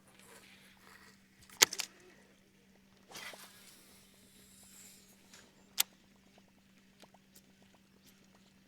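Quiet sounds from a fishing boat: a steady low hum with a few sharp clicks and knocks of tackle, the loudest about a second and a half in and another near six seconds, and a short rustle around three seconds.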